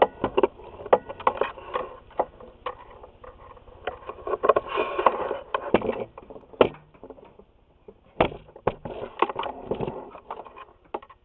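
Irregular knocks, clicks and rustling from the camera being handled: picked up, swung around and set down.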